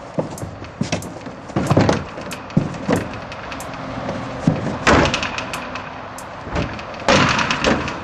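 Irregular knocks, bumps and rustling from a person moving about and standing up inside a large plastic wheeled waste container, with a few louder rustling bursts about two seconds in, about five seconds in and near the end.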